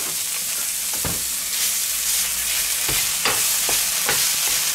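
Minced meat sizzling as it fries in a frying pan with onions and tomato paste. A wooden spatula knocks and scrapes against the pan as the meat is broken up, once early and then in quick knocks over the second half.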